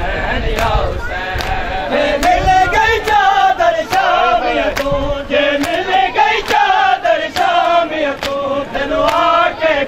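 Men's voices chanting a mourning lament (noha) in unison, with sharp rhythmic slaps of hands on bare chests (matam) keeping an even beat, slightly faster than one per second.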